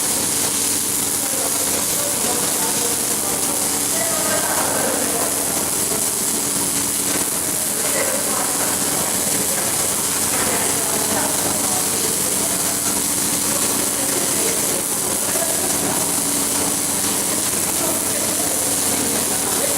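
Welding equipment running: a steady hiss with a steady low hum, level and unbroken throughout.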